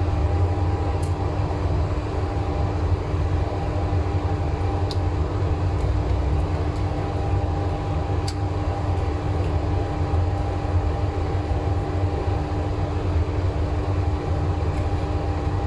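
Hard disk drive from a faulty external drive, powered up after being opened, running with a steady hum and a few faint high ticks. Its heads are suspected bad and it is known for making abnormal noise.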